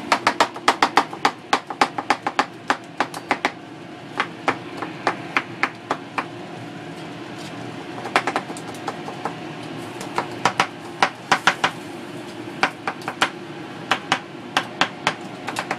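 Chef's knife chopping avocado and pico de gallo on a plastic cutting board: quick runs of sharp knocks on the board, several a second, broken by short pauses, over a steady low hum.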